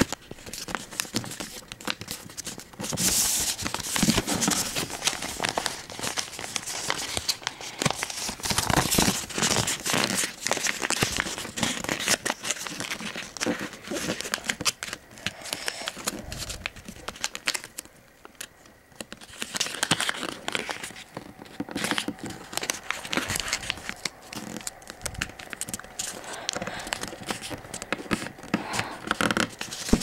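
A sheet of paper being folded and creased by hand, crinkling and rustling in a long series of short bursts. It eases off briefly a little past halfway.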